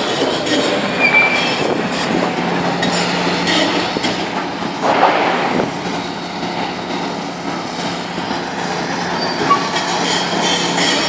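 Hitachi tracked excavator at demolition work: its diesel engine runs with a steady hum while the attachment scrapes, clanks and squeals against steel and rubble, with a louder crash of debris about five seconds in.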